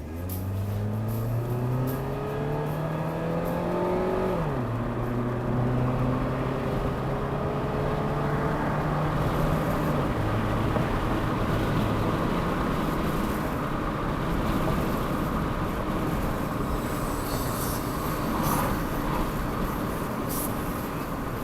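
Toyota Carina car driving: its engine revs up, drops in pitch about four seconds in as it changes gear, holds steady, then eases off and fades, leaving steady tyre and road noise with a few small bumps near the end.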